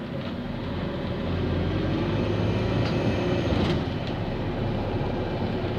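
Bus engine and road noise heard from inside the moving bus, growing louder about a second in.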